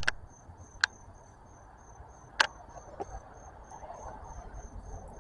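Cricket chirping steadily, a high chirp about three times a second. Two sharp clicks cut in, about one second in and near halfway.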